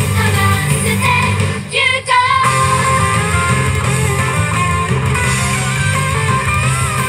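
Upbeat J-pop song with female group vocals, played loud over the stage's PA speakers. About two seconds in, the backing drops out for a moment, then the full band sound with guitar comes back in.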